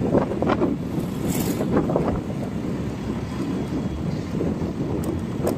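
A vehicle in motion: steady road and engine rumble with wind buffeting the microphone, and a few brief knocks and rattles.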